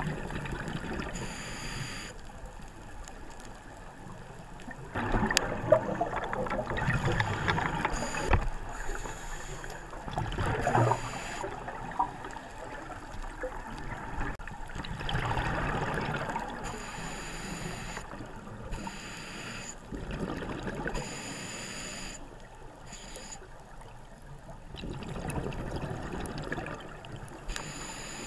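Scuba diver breathing through a regulator, heard underwater: bursts of exhaled bubbles about every five seconds over a steady watery hiss.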